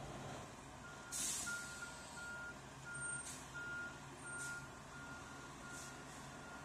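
A vehicle's reversing alarm beeping steadily at one pitch, about three beeps every two seconds, starting about a second in. A few short hisses come and go over it, and a low steady hum runs underneath.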